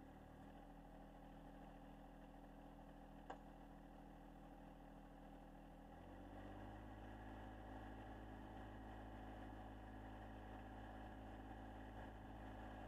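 John Deere 1025R compact tractor's three-cylinder diesel engine running steadily at a distance, its pitch stepping up slightly about six seconds in. A single sharp click a little after three seconds.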